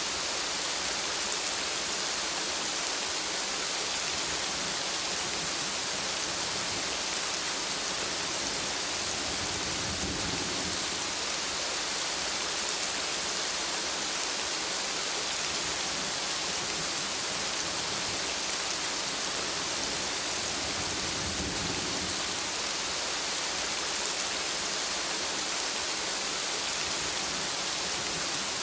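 Steady gentle rain falling, an even hiss of drops with no let-up. Two brief low swells come through, about a third and two-thirds of the way in.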